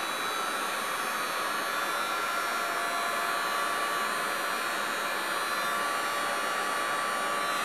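Heat gun running steadily, blowing hot air to fuse a fresh layer of encaustic wax on a board: an even rush of air with a faint steady whine from its fan motor.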